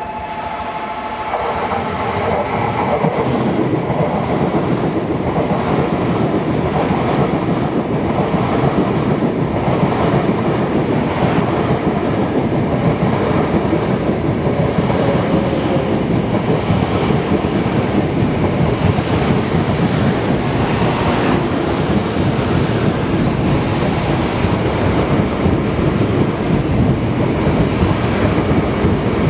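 Shinkansen train running along the platform track: steady rumble of wheels on rails with clickety-clack and some wheel squeal, building up about a second in. A station alert tone fades out just as the train noise rises.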